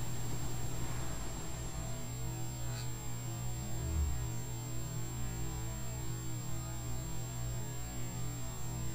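Steady electrical hum with a thin high whine and hiss in the background. There is a soft low bump about four seconds in.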